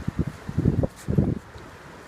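Wind buffeting the microphone in low, uneven gusts, three of them in the first second and a half, over a steady outdoor hiss.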